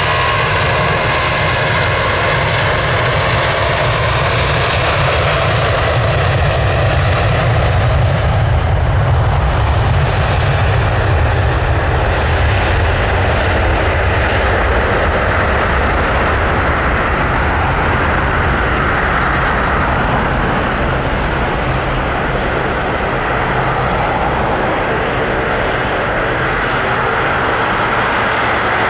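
An Airbus A320's twin IAE V2500 turbofans at takeoff thrust during the takeoff roll and climb-out. A high fan whine rides over a low rumble as the jet passes. The whine fades within about ten seconds, leaving a steady rumbling jet noise as the aircraft lifts off and climbs away.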